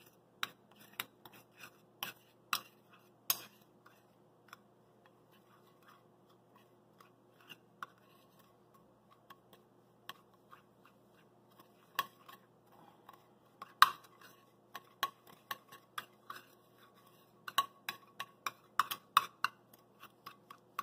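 Metal spoon scraping and clicking against a stainless steel bowl while stirring a thick, sticky paste. Each knock leaves the bowl ringing briefly. The strokes are irregular, sparse and faint through the middle, then quicker and louder in the last third.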